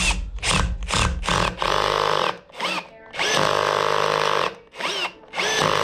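Cordless drill boring a hole in a metal piece held in a vise, run in several short bursts and then two longer runs, its whine rising as it spins up and falling as it stops. The direction is switched to reverse between runs to keep from breaking the bit.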